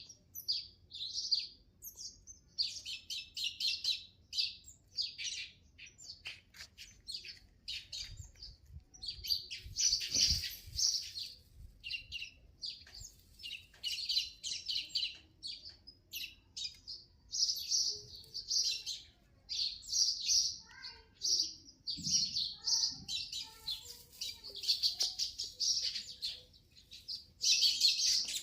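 Small nesting birds chirping: quick runs of short, high chirps, one burst after another, with brief gaps between.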